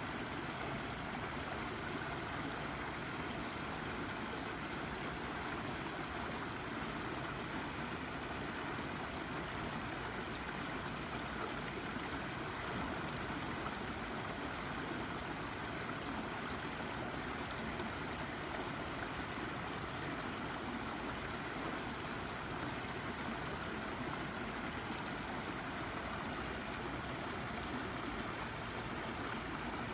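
Babbling brook: shallow water running and gurgling over a rock, a steady continuous rush with no change.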